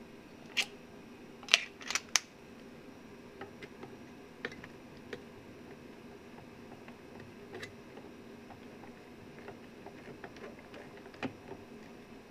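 Hand screwdriver setting and turning a screw in the metal clamp bar of a battery charger's heat sink: a few sharp metallic clicks in the first two seconds, then faint scattered ticks as the screw is driven in.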